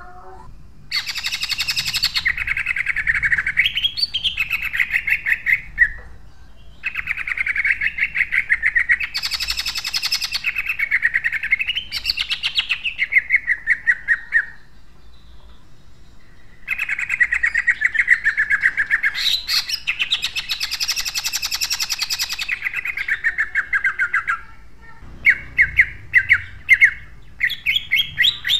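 Caged male cucak ijo (green leafbird) singing loud, fast 'tembakan' bursts of rough-toned rattling notes. It sings three long bouts with short pauses between them, then a few short, sharp bursts near the end.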